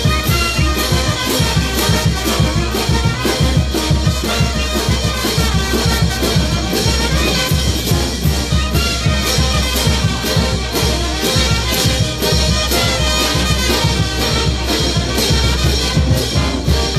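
Live brass band with sousaphones playing a dance tune with a steady beat.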